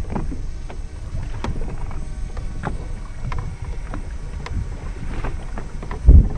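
Wind buffeting the microphone and small waves slapping against a fishing boat's hull in frequent short knocks, with one heavy low thump about six seconds in.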